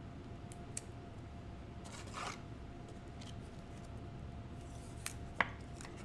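Trading cards being handled: a few faint clicks and a brief rustle about two seconds in. A faint steady tone hums underneath.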